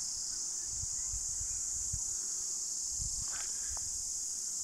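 Steady, high-pitched chorus of insects shrilling without a break, over irregular low rumbles on the microphone.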